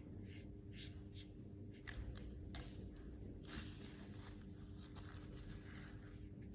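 Faint irregular rustling and scraping strokes over a steady low hum.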